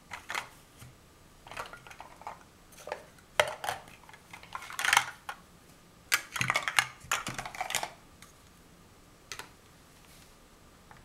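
Large plastic Mega Bloks First Builders blocks clattering and clicking as they are rummaged through and handled, in irregular bursts, with one last click near the end.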